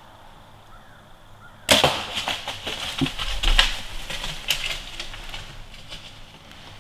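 Bow shot at a whitetail buck: a sudden sharp snap about two seconds in, then a few seconds of crackling and rustling through dry leaves and brush as the deer runs off, fading toward the end.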